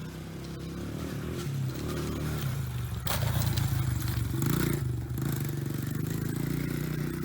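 Dirt bike engine running steadily, with a sharp knock about three seconds in and a brief rise in pitch and level about halfway through.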